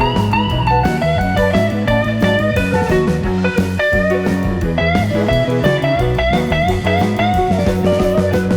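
Background music: a blues-rock tune led by guitar, with a sliding melody line over a steady bass.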